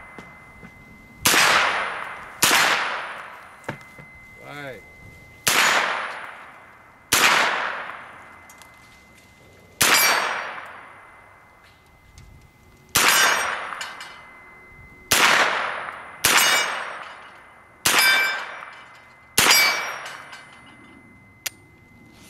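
Sig Sauer MPX 9mm carbine fired as ten unhurried single shots, each echo dying away over about a second. A high metallic ping rings on behind the shots, which the shooters put down to the flash hider pinned to the barrel.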